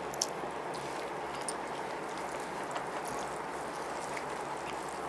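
Quiet eating sounds: a few faint, scattered clicks and smacks of eating rice and chicken by hand and chewing, over a steady background hiss.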